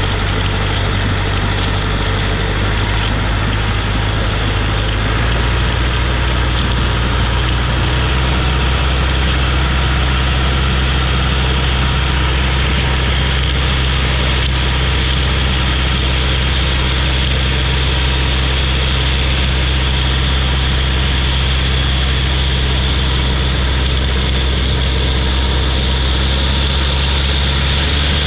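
Long-tail boat's engine running steadily, picking up revs about five seconds in as the boat gets under way, with a steady rush of churned wake water.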